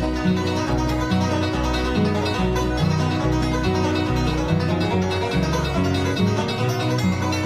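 Instrumental bluegrass break: a banjo and acoustic guitar picking over a bass line that alternates between low notes about twice a second, with no singing.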